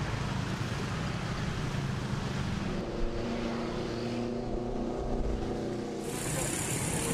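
Street traffic: motor scooters and cars riding past with their engines running, one scooter engine's steady tone standing out in the middle. The background changes abruptly to a steadier hiss about a second before the end.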